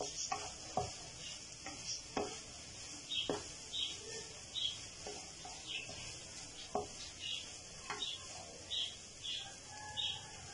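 Diced chicken, green capsicum and onion sizzling in a non-stick frying pan while a wooden spatula stirs and scrapes through them, knocking against the pan now and then.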